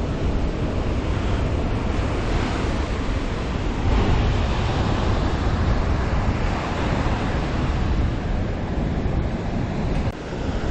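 Ocean surf washing in, with wind rumbling on the microphone; the wash swells about four seconds in.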